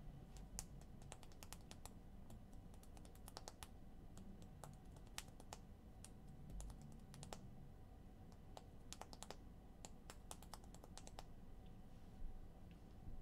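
Faint typing on a keyboard: irregular clicks in short runs with pauses between them.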